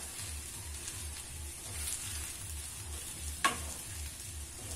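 Spatula stirring sago pearls and fried vegetables in a pan over a low gas flame, with a soft sizzle of the food in the ghee. The spatula knocks once against the pan about three and a half seconds in.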